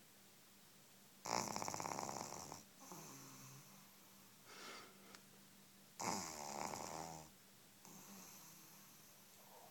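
Pug puppy a few weeks old snoring in its sleep: two loud snores about five seconds apart, each followed by a quieter breath.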